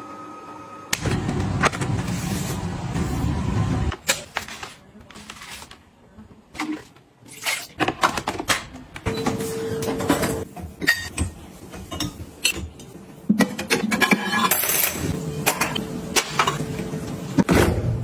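A Roborock wet-dry floor washer runs in its dock for about three seconds, then stops. Later come repeated knocks and metallic clinks as dishwasher wire racks are pulled out and handled.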